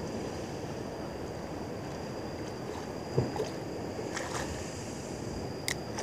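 Steady wind and sea noise around a small boat on open water, with a thin high tone under it. A single dull knock about three seconds in, then a few faint clicks near the end.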